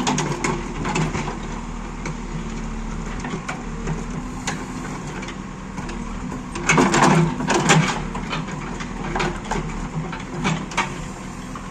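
JCB backhoe loader's diesel engine running steadily under work, with irregular crunching and knocking from the digging gear, heaviest near the middle.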